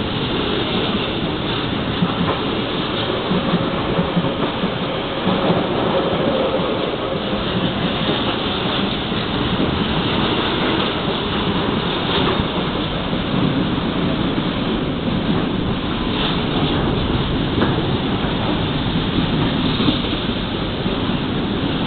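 Container freight train running through at speed: a steady, loud rumble and clatter of wagon wheels on the rails that never lets up.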